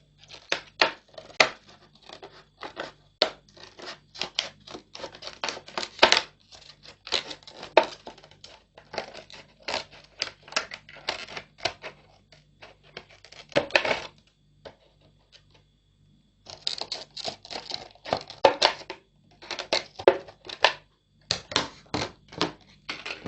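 Scissors snipping through a thin plastic soft-drink bottle: a long run of quick, sharp cuts, stopping for about two seconds a little past the middle before carrying on.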